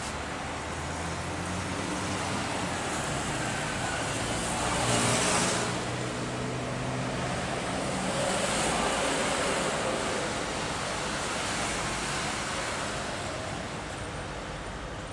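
Boeing 737-900ER's CFM56-7B turbofan engines running as the airliner rolls along the runway: a steady jet rumble with a low hum, swelling into a louder rush about five seconds in and again a few seconds later.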